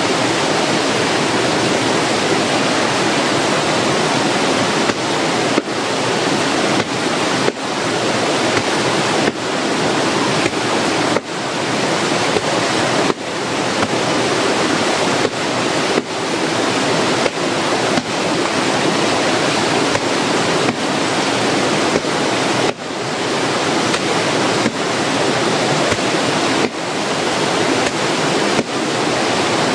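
Water rushing steadily over a small rocky cascade in a stream, close by, with the level dipping briefly every second or two.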